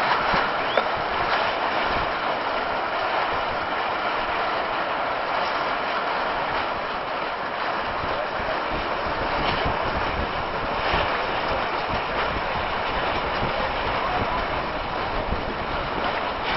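Steady rushing noise of wind and choppy water around a small boat, with a few faint splashes or knocks.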